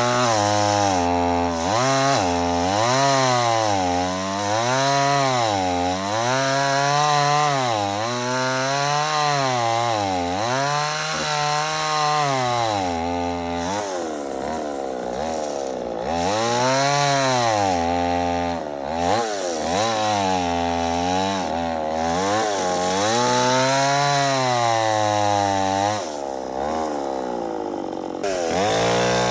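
Two-stroke chainsaw cutting through a big log, its engine pitch rising and falling every second or two as the load on the chain changes.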